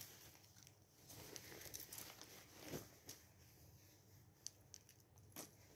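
Faint rustling of a thin fabric dress being shaken out and handled, with a few light ticks near the end.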